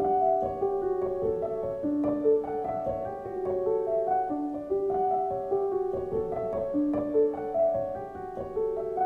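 Background music: a gentle piano melody of held notes.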